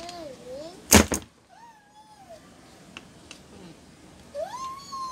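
A cat meowing three times, the last call rising higher than the others. A sharp double clack about a second in is the loudest sound.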